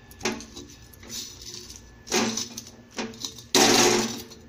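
A pestle pounding and grinding roasted green chillies, garlic and rock salt in an iron tawa: a handful of separate knocks and scrapes, then a louder, longer rasp near the end.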